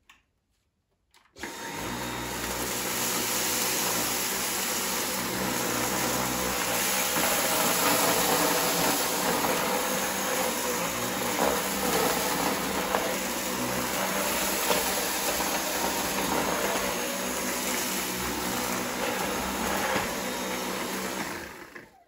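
Dyson V8 cordless stick vacuum switching on about a second in and running steadily as it is pushed over the floor picking up scattered couscous, then stopping near the end.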